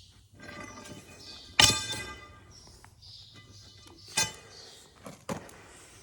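Steel pry bar clanking against the heavy tire rim and axle hub as the wheel is levered onto a combine's final-drive axle. One ringing metallic clank comes about a second and a half in, then sharper knocks around four and five seconds in.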